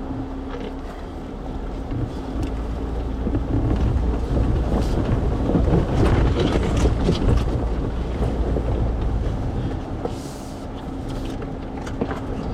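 Jeep crawling slowly over a rutted dirt trail: a low engine and drivetrain rumble with the body and suspension rattling and knocking over the bumps, louder for a few seconds in the middle.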